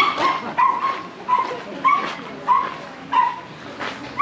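A dog barking repeatedly in short, high yelps, evenly spaced at about three every two seconds.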